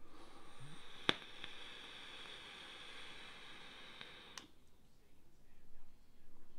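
Vape coil in a rebuildable dripping atomizer sizzling with a faint airflow hiss during a long draw of about four seconds at 70 watts on freshly wetted cotton. There is a click about a second in and another as the draw stops.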